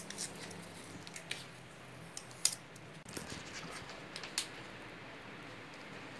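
Thin plastic protective wrap on a new laptop being handled and lifted, crinkling faintly, with a few sharp crackles.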